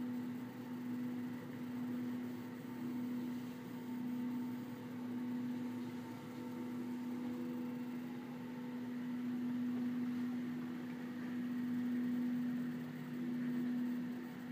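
Steady machine hum: one low tone over a faint hiss, gently swelling and fading in loudness.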